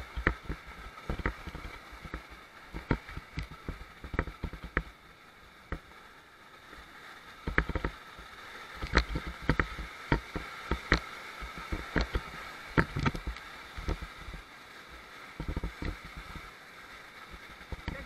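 Whitewater rapids rushing around an inflatable raft, with frequent irregular thuds, knocks and splashes. The knocks come thickest in the middle of the stretch.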